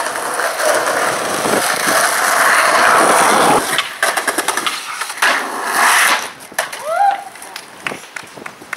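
Skateboard wheels rolling with a steady rumble for about three and a half seconds, then a run of sharp clacks and knocks of the board hitting the ground.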